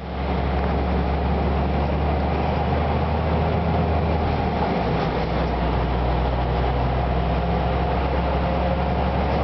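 Road vehicle driving at a steady speed: engine running with a steady low drone over tyre and road noise.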